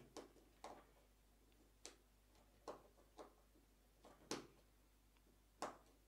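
Small screwdriver turning a wire terminal screw on a push-button contact block: a handful of faint, irregular clicks and ticks, the sharpest about four seconds in.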